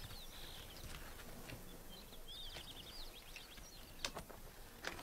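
Faint bird chirping, short high arched chirps scattered through, with a couple of soft clicks near the end.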